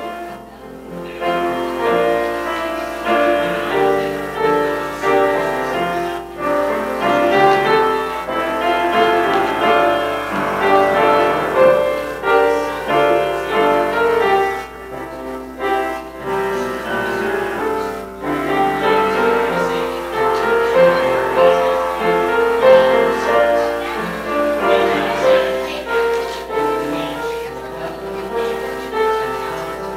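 Instrumental keyboard music: a slow piece of overlapping held notes, with a faint low hum underneath.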